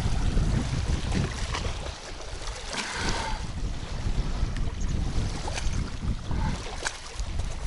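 Wind buffeting the microphone: an uneven low rumble that swells and eases, with a few faint clicks.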